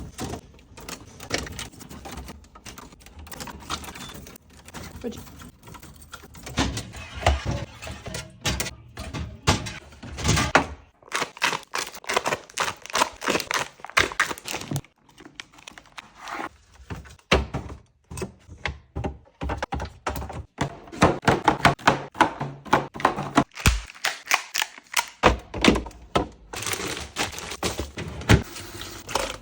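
A fast run of knocks, clicks and clatter as containers, jars and fridge drawers are taken out, handled and set back in a refrigerator, several small impacts a second and busiest in the second half.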